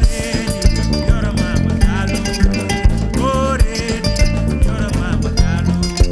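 Live West African band playing: kora plucked over djembe drumming and an electric bass line, with a voice singing over them in gliding phrases.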